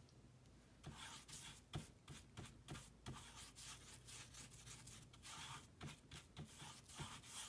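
Faint, irregular swishes and scrapes of a watercolour wash brush stroked across damp watercolour paper, starting about a second in.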